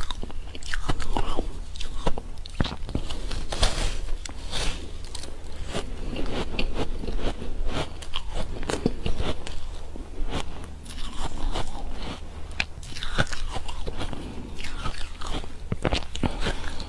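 Close-up biting and chewing of a frozen ice cake: irregular, crisp crunches and crackles, several a second, as bites are taken and chewed.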